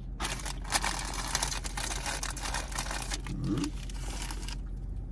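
Plastic snack bag of Quaker Rice Crisps crinkling as it is handled, a dense crackle that stops about four and a half seconds in.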